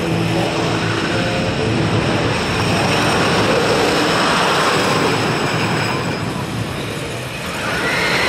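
Wooden roller coaster train rumbling along its wooden track, a steady loud rumble that swells around the middle, eases and swells again near the end, with people's voices in the background.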